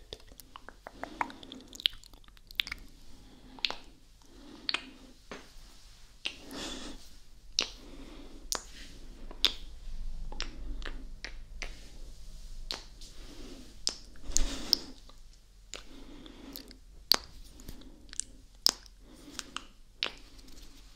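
Wet ASMR mouth sounds made right at the microphone: lip smacks, kisses and tongue clicks, sharp irregular clicks about once or twice a second, with now and then a longer wet smacking sound.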